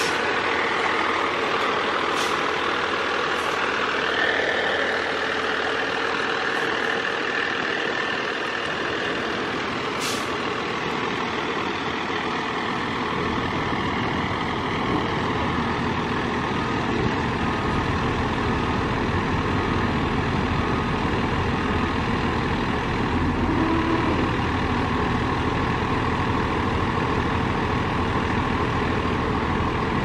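Fire department ladder truck's diesel engine running steadily close by, with a few brief sharp sounds in the first ten seconds. A faint evenly spaced beeping sounds for a few seconds a little past the middle.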